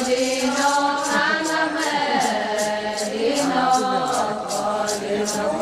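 Voices singing the Adi Ponung, a traditional chanted dance song. From about a second in, a rhythmic jingling keeps time about two to three beats a second.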